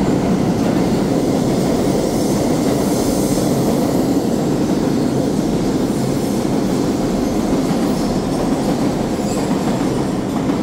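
New York City Subway express train running through the station on the center track without stopping: a loud, steady rumble of wheels on rail.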